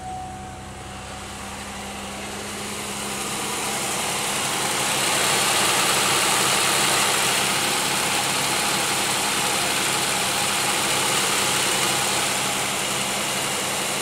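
2001 Pontiac Aztek GT's 3.4-litre V6 idling steadily, getting louder about four to five seconds in as the engine bay is approached. It is running just after a replacement ignition coil was fitted to cure a misfire, and the owner still sees a little vibration, so the miss may not be fully gone.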